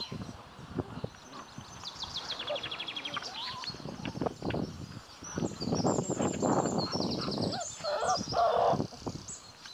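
Small birds chirping and trilling, with a louder, rough, noisy stretch in the second half from young golden retriever puppies tussling in play.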